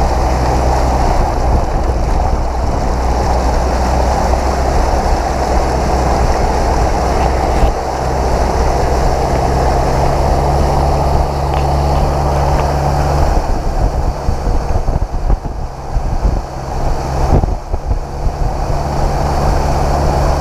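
A 4x4 ploughing through deep flood water: a continuous rush and splash of water surging along the side of the vehicle, over a steady low engine drone. The rush turns more uneven in the second half.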